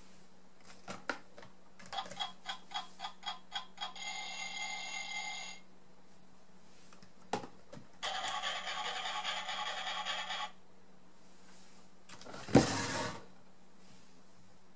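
A children's sound-book speaker plays a clock effect: quick ticking, about four ticks a second, then an alarm bell ringing. Later comes another short electronic sound effect, and near the end a sharp knock from the board book being handled, the loudest sound here.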